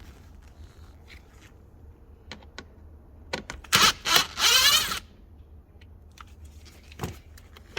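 Tool work on the T25 Torx screws of the glove box side panel: a few sharp clicks and knocks about three seconds in, ending in a short rasping, whirring burst, then a couple of faint clicks.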